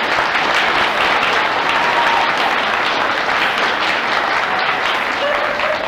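Audience applauding steadily: many people clapping at once, with a few faint voices near the end.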